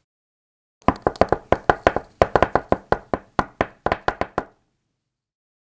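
Many balls bouncing: a quick, uneven run of sharp bounce taps, about seven a second, starting about a second in and stopping about a second before the end.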